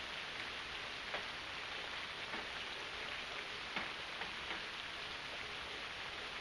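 Steady rain falling, an even hiss, with a few separate drops tapping more sharply now and then.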